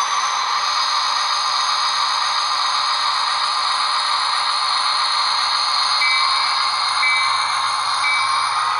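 Bachmann HO-scale SD40-2 model locomotive running with its DCC sound decoder playing diesel locomotive sounds through its small speaker: a steady hum with held high tones. From about six seconds in, the decoder's bell rings about once a second.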